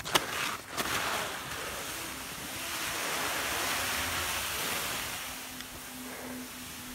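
Fischer S-Bound 98 skis sliding downhill through snow: a steady hiss that swells about a second in and fades after about five seconds, with a few clicks at the start.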